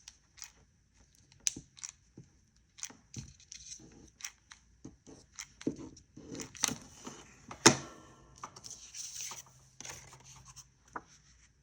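Cardstock papercraft pieces being handled, rustled and pressed down during hot-gluing, with scattered small taps and clicks and one sharp knock about two-thirds of the way through.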